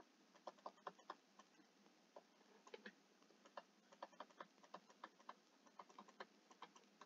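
Near silence, broken by faint, irregular small clicks and taps from handwriting input on a computer.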